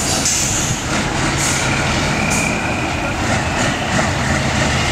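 Diesel engine of a heavy six-wheeled off-road trial truck running steadily under load, a low, even drone, with a few short high hisses in the first half.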